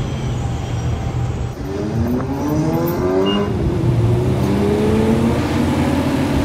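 An engine running, then revving up: its pitch rises from about two seconds in and settles at a higher, steady speed.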